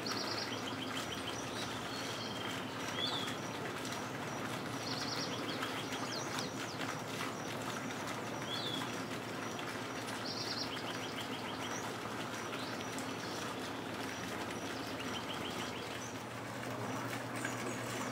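Several wild birds calling: a short phrase of quick repeated notes comes back about every five seconds, with other chirps in between, over a steady background hum and hiss.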